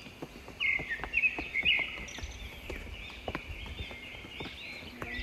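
Birds chirping and calling outdoors, with a few loud chirps in the first two seconds over a steady high-pitched background hiss, and scattered light knocks.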